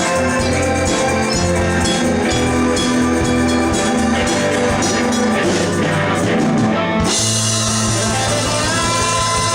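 Music playing throughout, with an abrupt change about seven seconds in, after which it sounds brighter.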